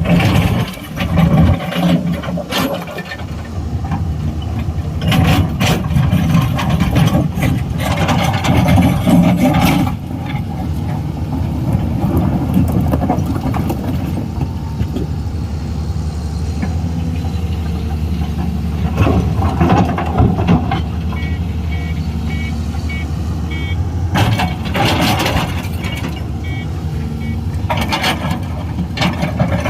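Excavator's diesel engine running steadily under load, with repeated clanks and knocks from the machine working. About two-thirds of the way through, a run of short, high, evenly spaced beeps sounds.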